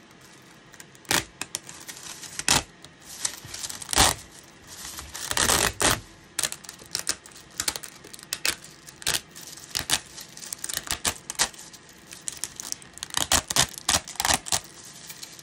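3D-printed plastic tetrahedron chainmail fabric pressed, squeezed and rubbed by hand, its many small interlocked plastic links clicking and clattering irregularly. A denser rattle comes about five seconds in, and the clicks come quicker near the end.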